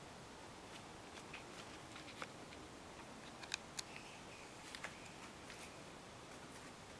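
A few light plastic clicks and taps from a hand working the 9V battery case's on/off switch, the sharpest a pair about halfway through and a few softer ones a second later, over a faint steady hiss.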